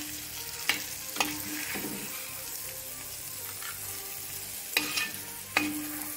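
A spoon stirring fried prawns into onion masala in a pan over a steady sizzle, knocking sharply against the pan about four times.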